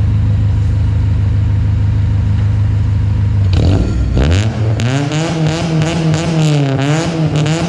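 2002 Honda Accord engine idling, then revved up about three and a half seconds in and held at higher revs with small wavers, starting to drop back near the end.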